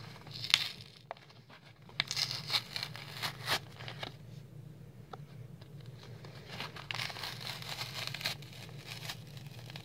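Plastic and cardboard blister pack being ripped open by hand: tearing and crinkling in irregular bursts, over a low steady hum.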